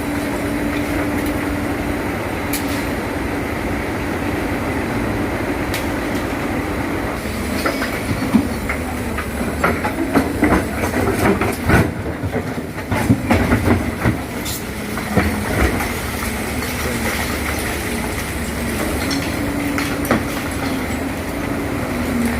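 Excavator working, its diesel engine running steadily with a held tone, and a flurry of metal clanks and knocks from about eight to sixteen seconds in.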